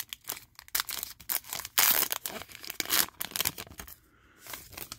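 A foil trading-card pack wrapper being torn open by hand and crinkling, with many small crackles and the loudest tear about two seconds in.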